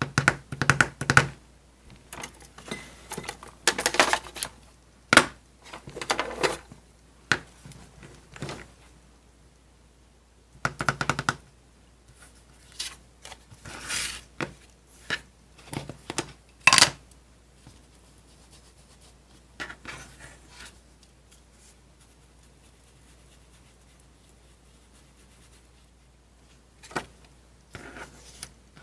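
Paper and small craft tools being handled on a work table: irregular taps, clunks and scratchy paper rustles, busiest in the first half.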